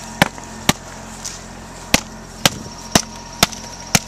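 Blocks of wax being smashed apart with a hand tool: seven sharp strikes about half a second apart, with a short pause after the first two.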